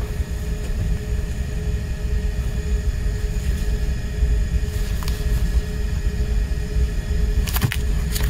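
Steady low rumble with a faint steady hum. A little before the end come a few sharp crackles and clicks as the shrink-wrapped CD case is picked up and turned over.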